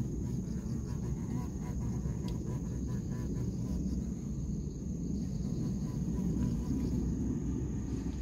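A bee buzzes faintly as it flies past in the first couple of seconds, over a steady low rumble and a thin, steady high tone.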